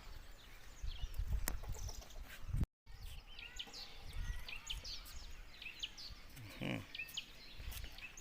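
Outdoor ambience of many small birds chirping in short high calls, over a low rumble during the first few seconds. The sound cuts out for a moment just under three seconds in, and one short, lower animal call sounds about seven seconds in.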